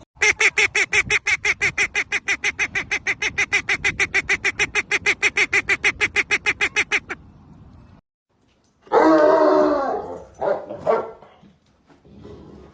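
An animal calling in a fast, even run of short pitched calls, about seven a second, for some seven seconds. After a break comes a louder, longer call, then a few shorter ones.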